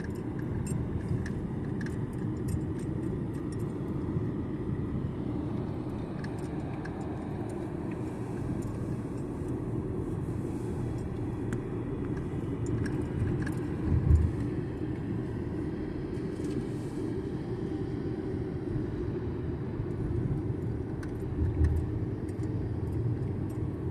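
Steady low rumble of road and engine noise inside a moving car's cabin, with faint small rattles and two brief low thumps, one about halfway through and one near the end.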